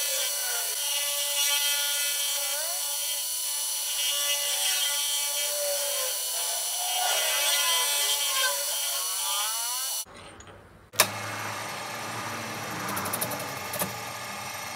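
Milling cutter facing the aluminium deck of a Honda PCX crankcase, a whining cut whose pitches slide up and down. About ten seconds in the sound breaks off. A sharp click follows, then the machine runs on with a lower hum as a tool works down in the cylinder bore.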